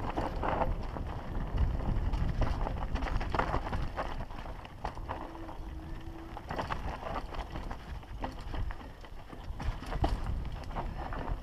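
Mountain bike riding fast down rocky singletrack: tyres crunching over loose stones and the bike rattling with frequent sharp clicks and knocks, over a continuous low rumble.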